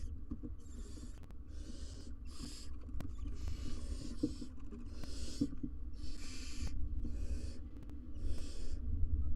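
Barn owl nestlings giving their rasping, hissing begging calls ("snoring"), one hiss about every second, over a low steady rumble.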